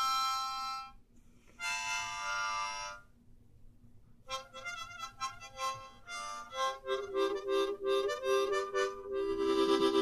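Solo harmonica playing, with no accompaniment. A held chord breaks off about a second in and a second chord follows; after a short pause comes a run of quick, short notes, and a long held chord near the end.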